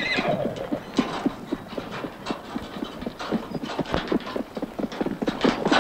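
A horse's hooves striking the ground in a quick, uneven run of clip-clopping steps as it walks briskly.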